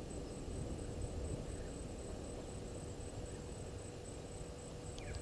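Bush ambience: a high, thin insect chirp pulsing evenly about four times a second over a low steady rumble, with one short falling call near the end.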